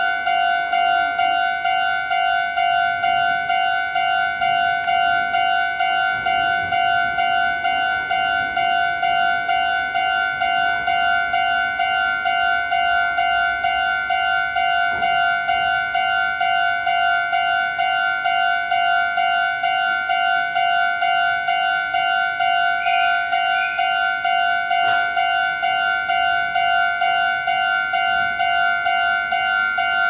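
Japanese electronic level-crossing alarm bell ringing in a fast, even, repeating ding, warning of an approaching train while the lights flash and the barriers are down.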